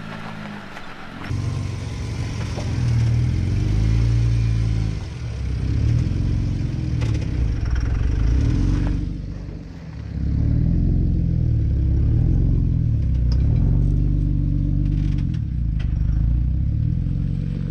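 Jeep Wrangler JK engine revving up and easing off in surges as it climbs over boulders, with a few short knocks of tyres and underbody on rock.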